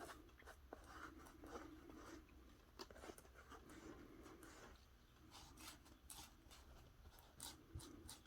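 Near silence with faint paper rustling and scattered light ticks of paper and stickers being handled.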